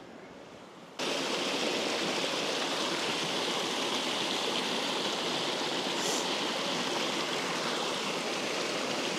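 Small moorland stream rushing over a rocky step in a little cascade: a steady rush of water that starts abruptly about a second in.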